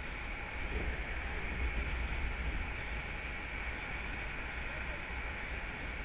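Wind buffeting a body-worn camera's microphone during a rope descent: a steady low rumble with a constant hiss and no distinct events.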